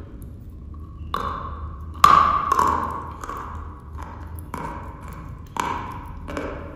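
Dry chalk being bitten and crunched close to the microphone: a run of crisp cracks, the loudest about two seconds in, each followed by a brief ringing tone.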